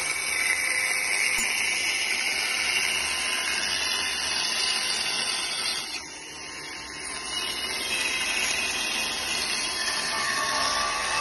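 Stihl chainsaw running and cutting into a walnut slab, a steady mechanical whir that drops away briefly about halfway through before the saw cuts again.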